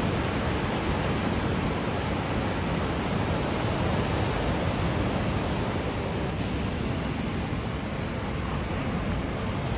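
Ocean surf breaking on a rocky shore, a steady, even rush of noise without pause.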